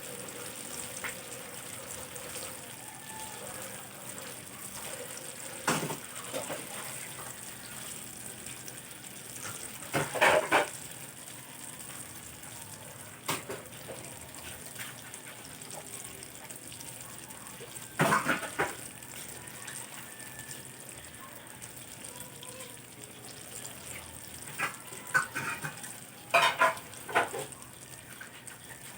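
Food frying in a pan with a steady sizzle. A metal utensil clatters and scrapes against the pan several times, in a cluster of quick knocks near the end.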